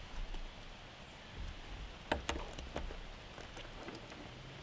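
Waxed canvas and leather bike bag being handled and set down on a wooden table: soft rustling and low bumps, with a few sharp clicks of its metal buckles and rings about two seconds in.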